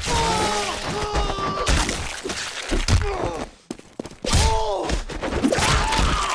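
Cartoon injury sound effects: several thuds and crunching impacts mixed with a character's pained cries and groans that slide up and down in pitch.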